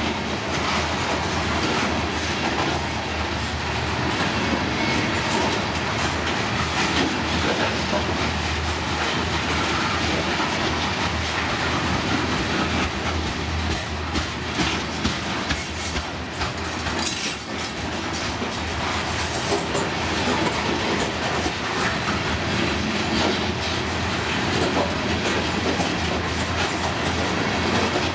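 Train cars rolling past on the rails, a steady running noise, with the clickety-clack of wheels over rail joints and a cluster of sharper clicks about halfway through.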